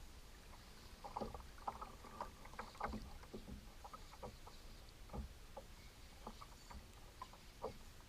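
Water lapping and splashing against a kayak hull, with irregular small splashes and knocks.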